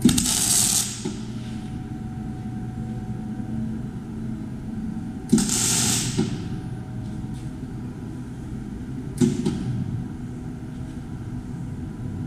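Electric arc welding on thick steel plate: three short bursts of crackling arc, the first two about a second each and the last one brief, as the plates are tack-welded together. A steady low hum runs underneath.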